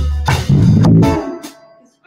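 Small rock band playing electric guitar, bass guitar and drums, with sharp drum hits over a heavy bass. The song ends about a second in and rings away to near quiet.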